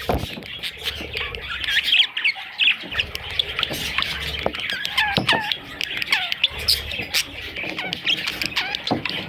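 Budgerigars chattering: many short overlapping chirps and squawks, with scattered clicks.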